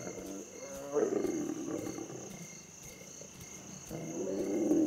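Lions growling, in two long rumbling bouts, at a kill. Crickets chirp steadily in the background.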